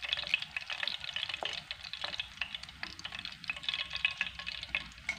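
Oil crackling steadily as coconut-coated beef satay skewers deep-fry on a very low flame, with a few sharper clicks as they are lifted out with metal tongs.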